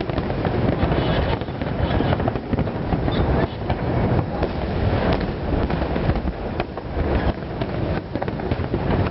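Fireworks going off in a continuous barrage of sharp pops and crackles, many overlapping, with no pause.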